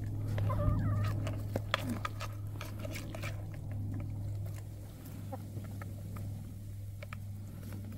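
Hens pecking feed from a pan: rapid, irregular beak taps and clicks on the grain and the pan's rim, with a short hen call in the first couple of seconds. A steady low hum runs underneath.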